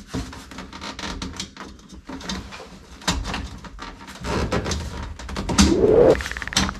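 Irregular clicks and knocks as a chrome trim strip is handled and pressed onto its clips on a classic Mini's interior trim panel.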